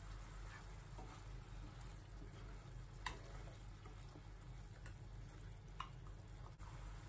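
Spatula stirring a thick masala gravy in a nonstick frying pan, with a few light knocks and scrapes of the spatula against the pan.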